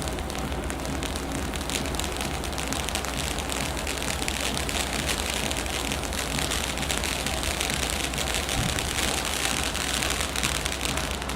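Gold battle fountain firework spraying sparks: a steady, dense crackling hiss.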